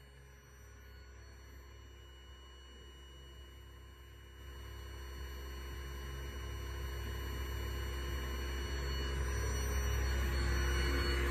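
Vibratory stress relief exciter motor, clamped to a welded steel frame, running with a steady low hum and a faint high whine. The hum grows louder from about halfway through.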